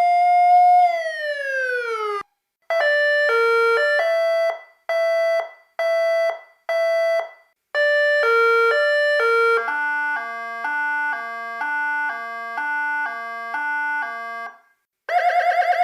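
Vixen Horns VXS7920 electronic siren playing several of its warning tones through its speaker. A held siren tone slides down and cuts off. A string of short stepped electronic beeps follows, then a steady alternating two-note tone, and about a second before the end a new fast-pulsing tone starts.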